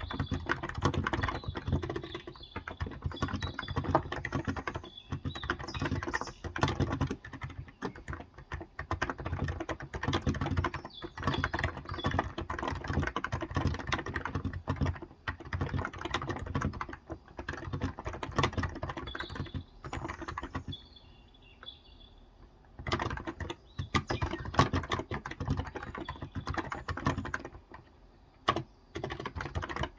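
Continuous fast typing on a Cox Endeavour tenkeyless keyboard with electro-capacitive 35 g switches, a dense run of soft, muffled keystrokes. The typing pauses briefly about two-thirds through and again near the end.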